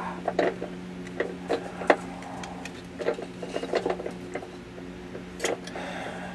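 Irregular metallic clicks and rattles of a steel fish wire being worked through the holes inside a car's frame rail, over a steady low hum.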